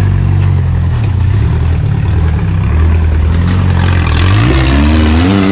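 Off-road buggy's engine working at low revs as it crawls over rocks, its pitch wandering, then revving up near the end.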